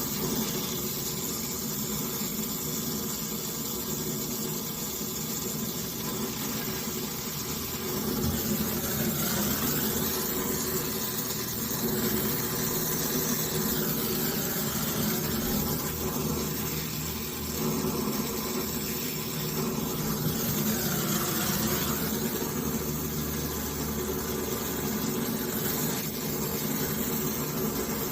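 A motor running steadily with a low hum, its level rising and falling slightly.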